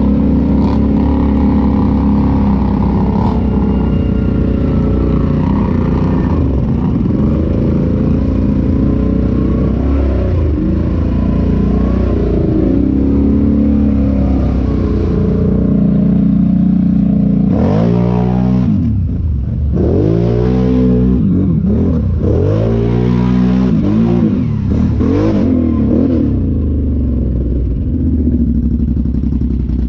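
Off-road vehicle engine running steadily on the trail. In the second half it is revved up and down in about four surges, each a rising then falling pitch.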